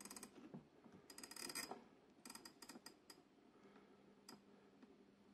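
Faint runs of small rapid clicks from the alarm-setting knob of a Copal RD-150 flip clock radio being turned, its alarm-hour dial ratcheting round. There are several short runs in the first three seconds and one more near the end.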